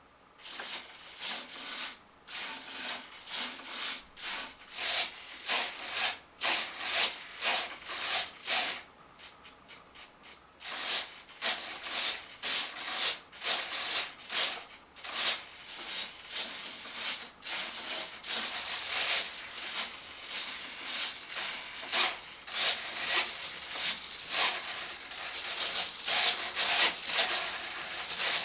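Servos of an RC MiG-29 EDF jet model whirring in quick, uneven bursts as they drive the control surfaces through their full 3D throws, one or two bursts a second, with a short lull about a third of the way through.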